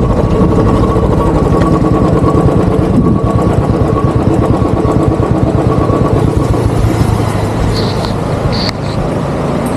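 Royal Enfield Bullet 350's single-cylinder engine running steadily while being ridden, its thumping pulse dense and even. It eases off slightly near the end.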